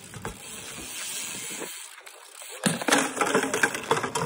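BMX bike tyres rolling on concrete, then about two and a half seconds in a crash: bike and rider hit the concrete bowl hard, with a run of clattering and scraping as the bike skids away.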